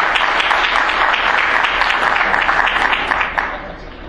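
Audience applauding, a dense patter of claps that dies away about three and a half seconds in.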